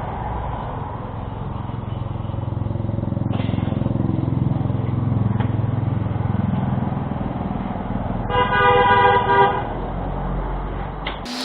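A motor vehicle's engine running, swelling and easing, with a horn honking for about a second near the end.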